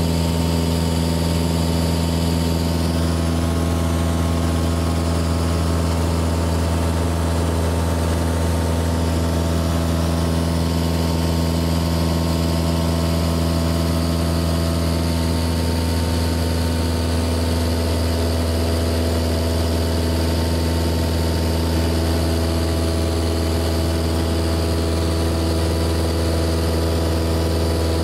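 Cessna's single-engine piston engine and propeller running at steady power in flight, heard inside the cockpit: a deep, even drone with a hiss of airflow over it.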